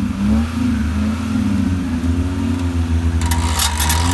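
Suzuki Gypsy 4x4 engine revving under load in off-road recovery, its pitch rising and falling. About three seconds in, a harsher crackling, rushing noise joins it.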